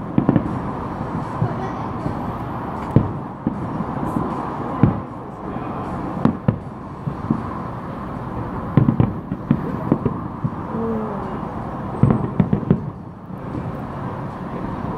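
Aerial fireworks bursting: irregular bangs, single and in quick clusters, over a steady background hiss.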